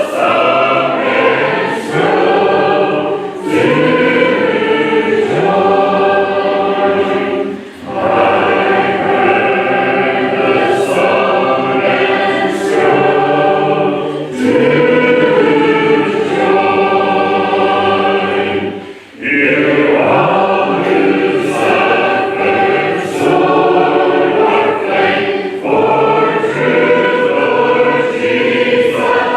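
Church congregation singing a hymn a cappella, in long sung phrases with short breaks between lines about eight and nineteen seconds in.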